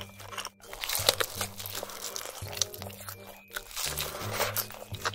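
Close-miked crunching and chewing as a bite is taken from a glazed roasted whole chicken: many short, sharp crackles. Background music with low repeating bass notes runs underneath.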